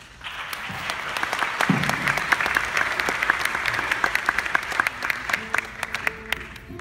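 Theatre audience applauding. The clapping breaks out suddenly, stays dense, then thins out near the end.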